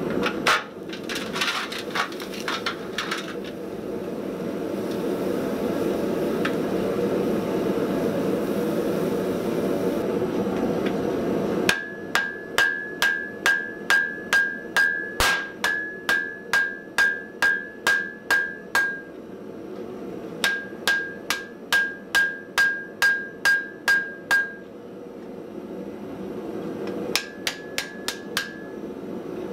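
Hammer blows on a glowing Damascus billet on the anvil, setting the forge weld that joins the stacked billets into one piece. There are about two strikes a second, each with a clear anvil ring: a run of about sixteen, a short pause, about ten more, then a few near the end. Before the hammering starts, a steady rushing noise runs for about twelve seconds, with some crackling at first.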